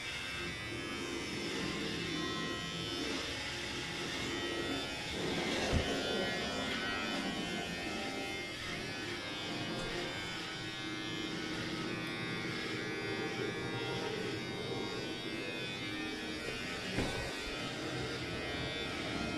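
Electric hair clippers buzzing steadily as they cut hair, with a brief knock about six seconds in.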